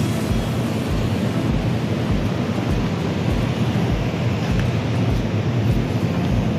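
Steady low rumble of a large indoor hall, with a muffled bass beat thumping about every 0.6 seconds.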